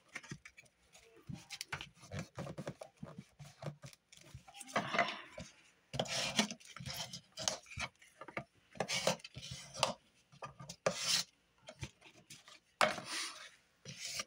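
Paper and cardboard being handled and rubbed on a work surface: irregular rustling and scraping strokes with light taps and clicks.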